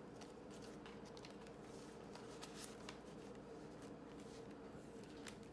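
Faint rustling and light clicks of paper banknotes being handled and tucked into the plastic pouch of a cash envelope binder, over a low steady hum.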